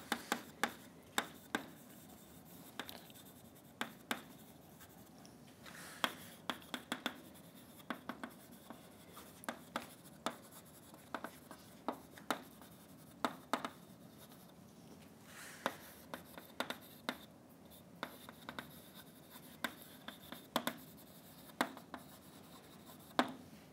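Chalk writing on a blackboard: irregular sharp taps of the chalk striking the board, with a few short scratchy strokes between.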